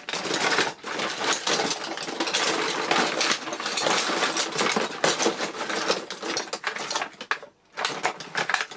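Rummaging through a toolbox: small metal tools and parts clattering and rattling against each other, with a brief pause about seven and a half seconds in.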